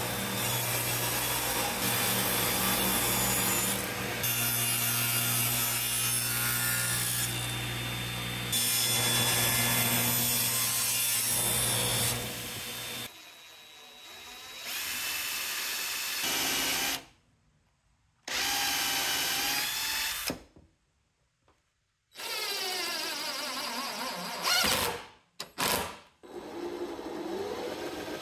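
Woodworking power tools running on wood, with a steady motor hum through the first dozen seconds. After that come shorter bursts that start and stop abruptly, with a few near-silent gaps between them.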